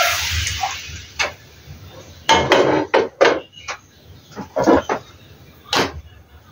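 Kitchen utensils and a pan clattering: about eight short knocks and taps, some in quick pairs, as risol wrappers and filling are handled. A rooster's crow fades out at the very start.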